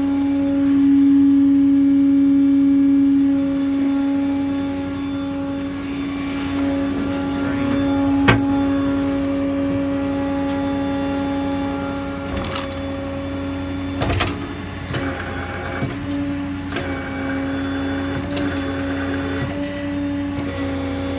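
Ford 6.7 Power Stroke diesel running with its PTO-driven hydraulic pump engaged: a steady hum with a strong whining tone. There is a sharp click about eight seconds in, and a run of short clicks and rattles in the second half as the IMT crane's remote-control switches are worked.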